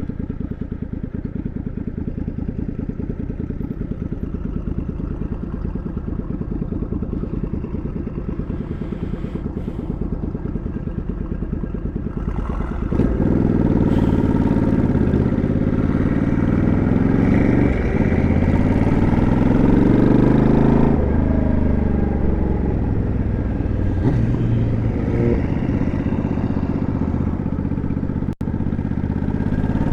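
Motorcycle engine running at low revs under the rider, then about 13 seconds in it gets louder and revs up, its pitch climbing and dropping back at gear changes twice.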